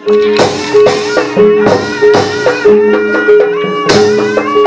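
Jaranan Buto traditional ensemble playing: a steady held note under a higher wavering melody, with sharp percussion and jingling strikes about twice a second.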